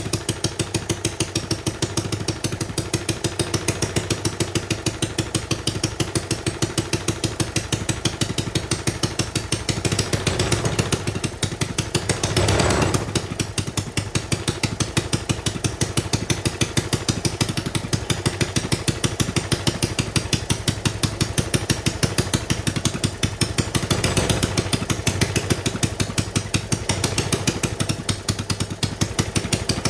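Homemade single-cylinder overhead-cam engine running steadily with a rapid, even rhythm of firing pulses. It swells briefly louder twice, once near the middle and again about four-fifths of the way through.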